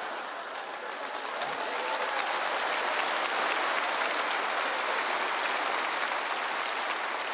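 Large theatre audience applauding, the clapping building slightly over the first few seconds and then holding steady.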